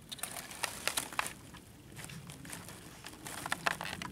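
Grass and dry stems rustling and crackling right at the microphone, in two spells of quick irregular clicks: one near the start and one near the end.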